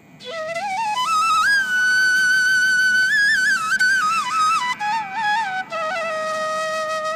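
Background music: a solo flute melody that climbs over the first second or so, holds a long high note with a light waver, then steps down and ends on a held lower note.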